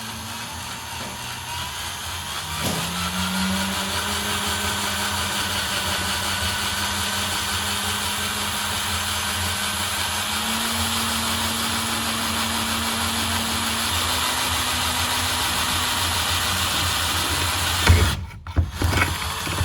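Electric drill running steadily as its bit bores a hole through metal. The motor's pitch steps up slightly a few seconds in. It stops near the end, followed by a few knocks.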